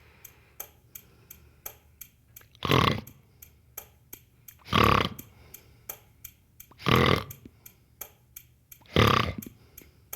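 Steady ticking, like a clock, with a short belch-like grunt every two seconds, four times, making a rhythmic sound-effect pattern.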